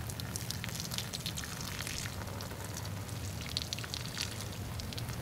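Water running out of the muzzle of an 1853 Enfield rifle-musket held upside down, splashing onto dry ground as a steady hiss of many small splats. It is the soak water being drained from the black-powder-fouled bore.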